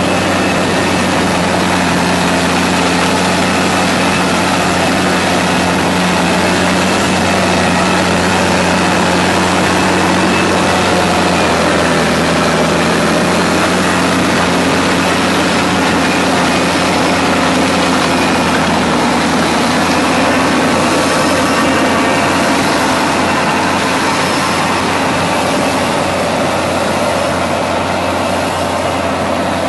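Crawler tractor's diesel engine running steadily under load while it drags a ditcher through wet mud, heard close up, with a steady low hum and mechanical rumble that ease off slightly near the end.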